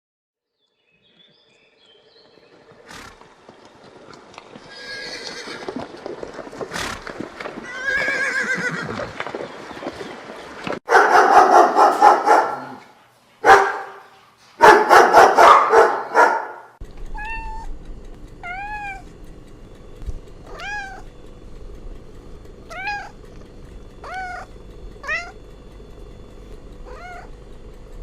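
A sequence of different animal calls: some rough pitched calls, then three loud calls in the middle, then a run of short rising-and-falling cries repeated every second or two over a steady low hum.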